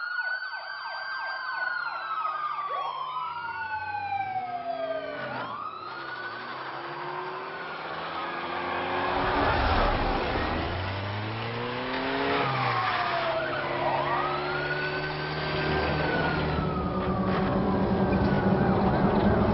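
Police sirens wailing, several overlapping rising and slowly falling wails, over the engine and road noise of a car driving fast. A vehicle rushes past about ten seconds in, and the engine and road noise grow louder near the end.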